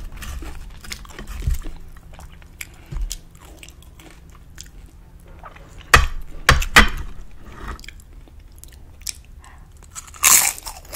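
Tortilla chips (nachos) being bitten and chewed close to the microphone: crisp, crackly crunching, with the loudest bites about six to seven seconds in and another loud crunch near the end.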